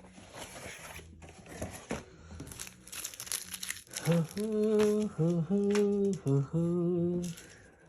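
Packaging crinkling and rustling as the phone's box is unpacked by hand, followed about halfway through by a man humming a short tune of several held notes.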